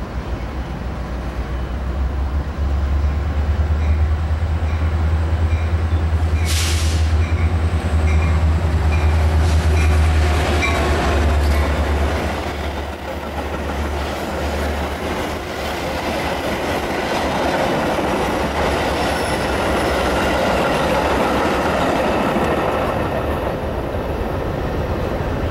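Metra diesel commuter train passing close: a deep engine rumble as the head end goes by, then steady rolling wheel noise from the bilevel gallery cars. There is a short hiss about six and a half seconds in, and the sound eases off near the end.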